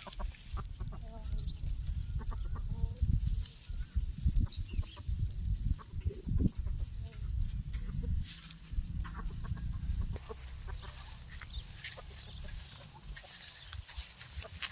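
Short animal calls, most of them in the first few seconds, over a constant low rumbling noise with scattered clicks.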